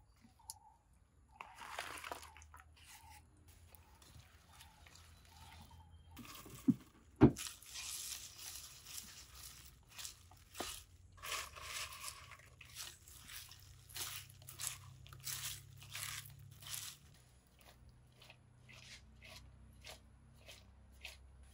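Hand mixing fried jackfruit pieces into a wet spice paste in a pot: a run of short crunching and squelching strokes, with one sharp knock about seven seconds in.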